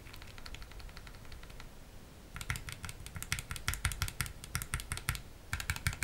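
Keycaps on Gateron optical switches being wiggled rapidly back and forth, giving fast, high-pitched rattling clicks. The rattle is faint for the first two seconds, then louder, with a brief pause near the end. It comes from the switch housings moving loosely in the plate, the wobble and rattly noise that switch films reduce.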